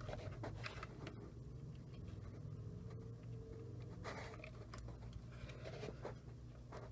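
Faint small clicks and scrapes of hands working the camcorder's small plastic parts while sliding out the hard-drive enclosure, with a slightly longer scrape about four seconds in, over a low steady hum.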